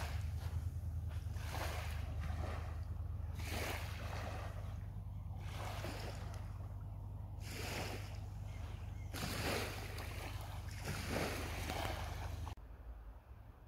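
Small waves washing onto a sandy shore, one swell of noise every couple of seconds, over a steady low rumble of wind on the microphone; the sound cuts off abruptly near the end.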